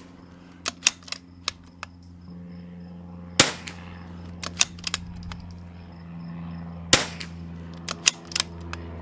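Two single shots from a bolt-action .22 LR rimfire rifle firing Lapua Center-X match ammunition, about three and a half seconds apart. Each shot is followed a second or so later by a few quick clicks of the bolt being worked to chamber the next round.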